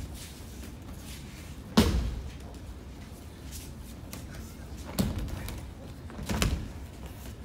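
Bodies hitting the tatami mats as the attackers take breakfalls from aikido throws: a loud thud about two seconds in, another at five seconds, and a doubled one a second and a half later.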